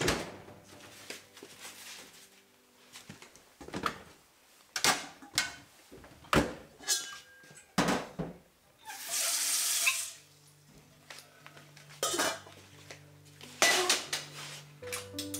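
Kitchen clatter at a stainless steel sink: a string of separate sharp clinks and knocks of dishes and containers being handled and set down, with a hiss lasting about a second roughly nine seconds in. Quiet music comes in over the last few seconds.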